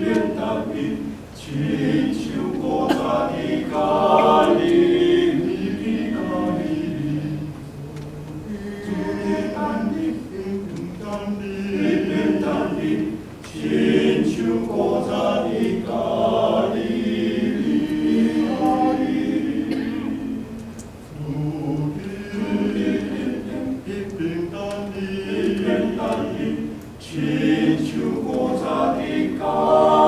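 Male vocal ensemble singing a hymn in Taiwanese, unaccompanied, in several voice parts, in phrases with short breaks between them.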